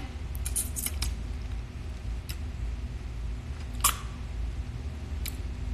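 A few short, sharp clicks over a low steady rumble. The loudest click comes about four seconds in.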